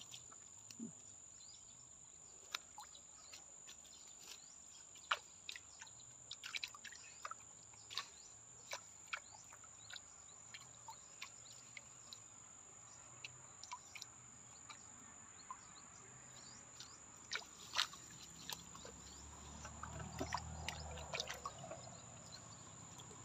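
Quiet outdoor waterside ambience: scattered short drips and taps over a steady high-pitched whine, with a low rumble swelling briefly about nineteen to twenty-two seconds in.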